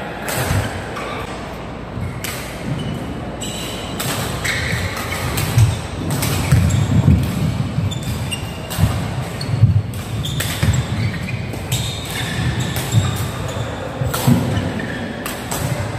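Badminton rally: sharp racket strikes on the shuttlecock at irregular intervals, roughly one a second, with players' feet thudding on the court and short squeaks from their shoes.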